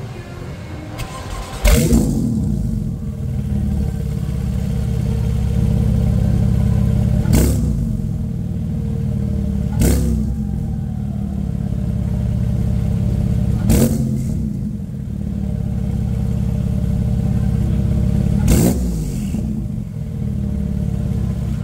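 2017 Porsche 911 Turbo's twin-turbo flat-six cold-starting: it catches with a loud burst about two seconds in, then settles into a steady, deep high idle. Four brief sharp cracks come through the idle, spaced a few seconds apart.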